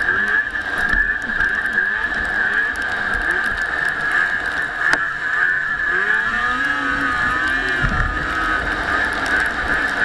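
A motor vehicle's engine running while driving, over a steady hiss. Past the middle, the engine pitch rises and falls a few times.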